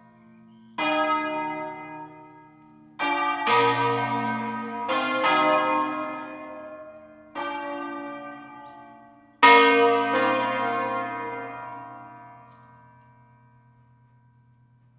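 Bronze church bells of an eight-bell concerto tuned in B-flat (Barigozzi, 1894), swung full-circle on wheels, sounding single strokes of different pitches at uneven intervals, about eight in all. The loudest stroke comes about nine and a half seconds in. After it the ringing dies away into a low, fading hum.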